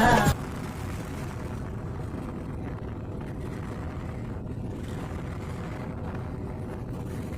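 A motorcycle engine running with a steady low hum; background music cuts off just after the start.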